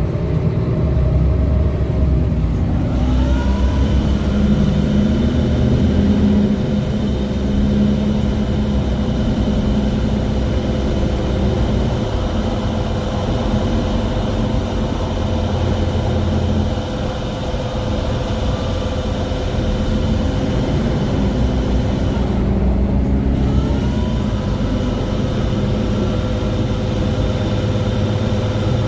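Mercedes-Benz Citaro G articulated bus running, its engine rumbling with a steady whining tone. A short rising whine comes twice, a few seconds in and again later on.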